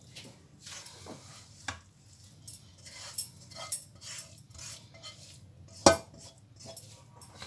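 A spatula scraping sliced chicken out of a frying pan into a glass baking dish: light scrapes and small clinks of the pan against the dish, with one sharp clink a little before six seconds in.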